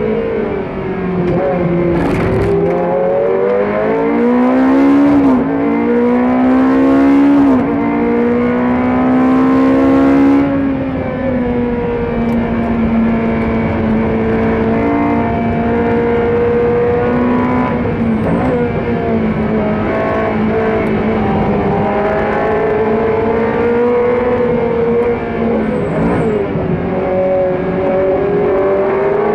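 GT3 race car engine heard from inside the cockpit, revving hard through the gears. Its pitch climbs and then drops sharply at each upshift three times in the first ten seconds. After that it is held at varying revs through corners, easing off and picking up again.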